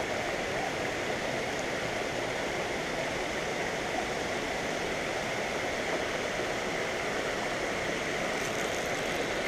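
Steady rush of water spilling over a concrete dam spillway into the pond.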